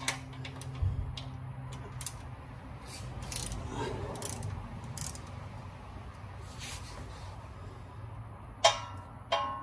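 Ratchet and 16 mm socket working the oil drain plug loose: scattered ratchet clicks and scrapes of metal, then two sharp metallic clinks near the end.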